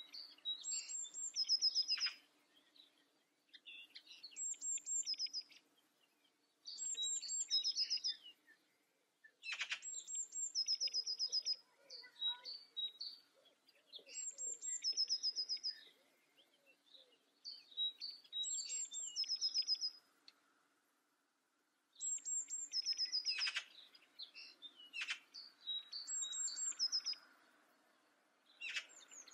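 Blue tit singing: each phrase is a couple of very high, thin notes followed by a slightly lower trill. The phrase repeats about every two to three seconds, with a longer pause about two-thirds of the way through.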